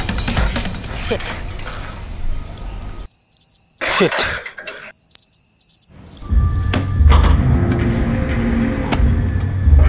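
Crickets chirping in a steady, pulsing high trill. There is a brief whoosh about four seconds in, and a low rumble with a few knocks from about six seconds on.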